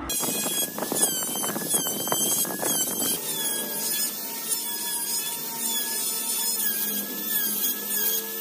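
Handheld rotary tool with a fine bit grinding tread grooves into a small wooden wheel: a high motor whine that wavers in pitch as the bit bites, over a rough scraping of wood.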